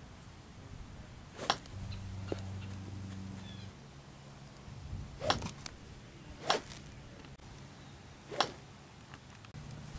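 Four golf shots with an iron, each club swing a short, sharp swish-and-strike, spread a second or more apart. A low hum runs for about two seconds near the start.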